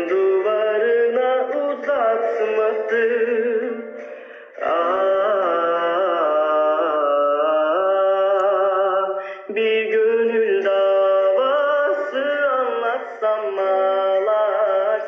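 A young man singing a slow, ornamented melody with long sliding notes, pausing briefly for breath about four and nine seconds in. The sound is narrow and thin, as relayed through a live stream's phone audio.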